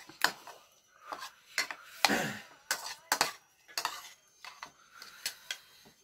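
Metal spoon and fork clinking and scraping against a ceramic bowl while mixing instant noodles: irregular sharp clinks, with a longer scrape about two seconds in.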